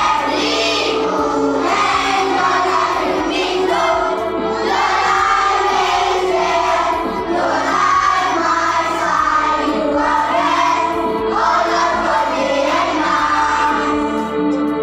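A group of children singing a prayer together, with a keyboard holding sustained chords underneath.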